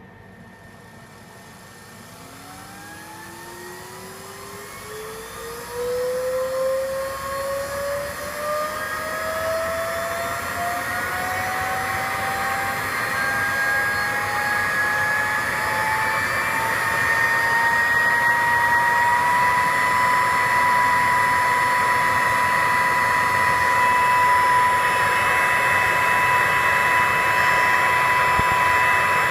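DV-201 electric fan switched on and spinning up: a whine rising steadily in pitch for about seventeen seconds, then holding at a steady high whine over a rush of air that grows louder as it speeds up.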